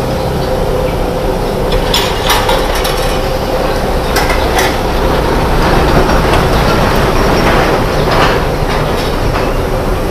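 Steady, loud mechanical roar with a low hum, typical of a hawker-stall kitchen's burners and machinery, with a few sharp clinks of metal plates and utensils being handled.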